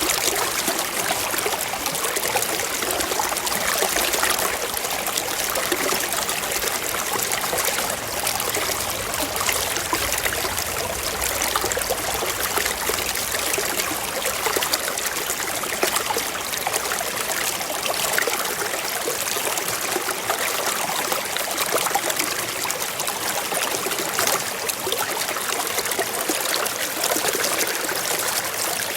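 Mountain stream flowing over rocks: a steady rush of running water with fine trickling and splashing.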